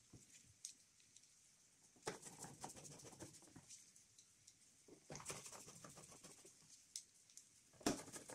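Near silence broken by faint light scratching and clicking, in a few short clusters about two, five and eight seconds in.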